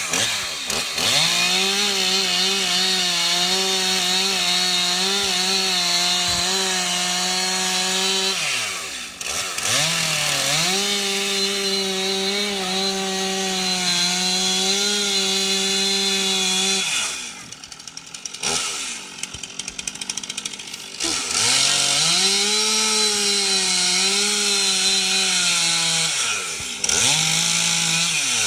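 Chainsaw carving a block of wood: the engine runs steadily at high revs under cutting load in long stretches, dips briefly twice, and falls back toward idle for several seconds past the middle before revving up again.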